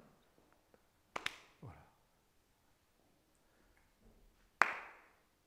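A few sharp slap-like hits: a quick double one about a second in and a louder one near the end, each followed by a short rushing tail.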